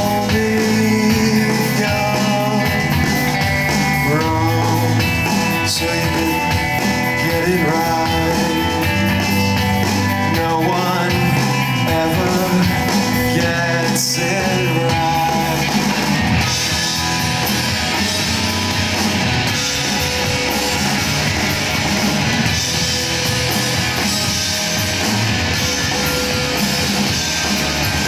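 Live indie rock band playing: electric guitars, bass guitar and drums, with a man singing over them in the first part. From about halfway the playing gets denser, with cymbals washing over it.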